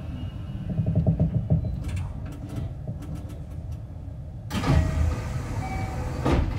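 JR 225 series 5100 electric train with Toshiba IGBT inverter drive, heard from inside a motor car as it slows to a stop. The inverter's falling whine dies away at the start, then low running rumble with a scatter of clicks, then a sudden louder noise lasting about a second two-thirds of the way through.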